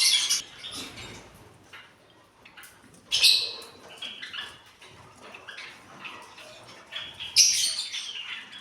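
Small cage birds in an aviary chirping and squawking, with a loud burst of high chirps about three seconds in and another near the end, and quieter calls and small clicks between.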